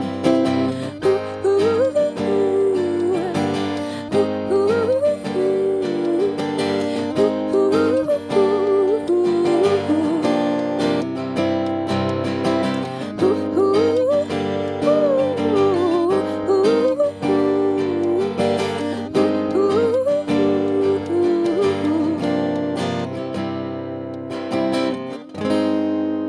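Acoustic guitar strumming under a wordless sung melody that glides up and down. The song closes on a final chord left ringing near the end.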